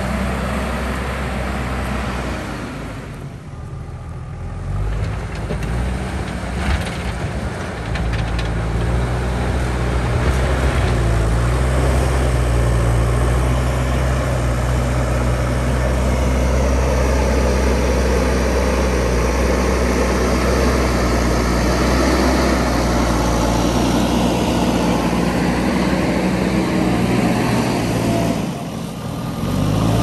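JCB backhoe loader's diesel engine running under load as the machine pushes and levels soil and rock with its front bucket. The engine note eases off briefly a few seconds in and again near the end.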